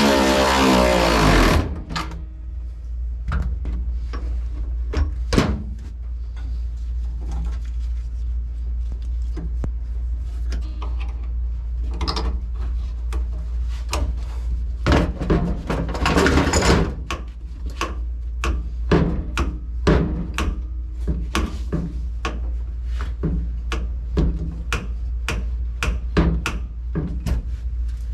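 Hand-tool work on a throttle pedal and its bracket: scattered clicks, knocks and metallic clatter over a steady low hum. It opens with a loud whine that slides in pitch and stops about a second and a half in.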